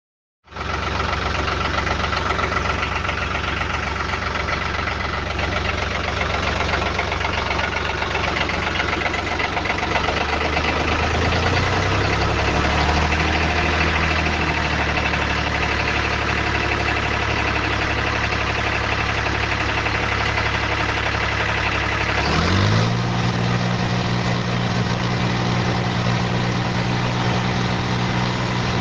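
Tractor diesel engine sound running steadily. About two-thirds of the way through its speed rises once, then holds at the higher pitch.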